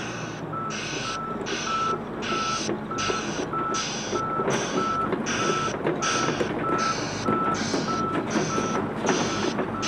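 Volvo ECR145EL hi-rail excavator tracking up the ramps onto a low-loader trailer, its travel alarm beeping steadily a little under twice a second over the running machinery.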